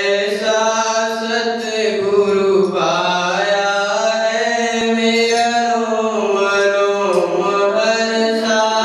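Opening of a Hindi devotional bhajan: a male voice sings long, held, gliding notes without words, like a chant, over a steady drone.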